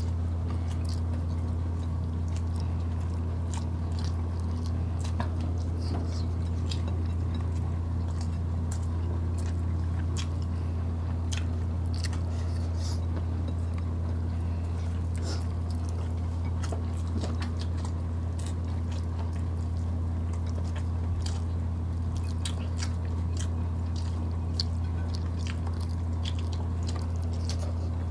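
Close-up eating sounds of two people chewing grilled chicken and rice eaten by hand, with many short, scattered wet clicks of mouths and fingers. A steady low hum runs underneath.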